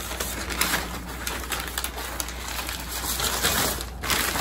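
Crumpled kraft packing paper rustling and crinkling as hands pull it out of a cardboard shipping box.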